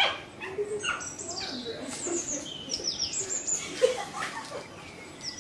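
Small birds chirping, many short high notes that fall in pitch and repeat throughout. A sharp click comes right at the start.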